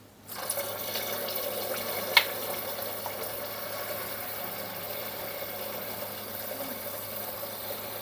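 A thin stream of lemon juice squeezed from a plastic lemon-shaped bottle, pouring steadily into a pot of syrup, starting a moment in. One sharp click about two seconds in.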